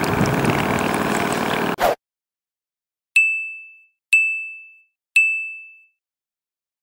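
Three identical bell-like electronic dings about a second apart, each ringing out for under a second: a sound effect laid over the edit. Before them, a steady wind-and-water noise cuts off abruptly about two seconds in, leaving silence between the dings.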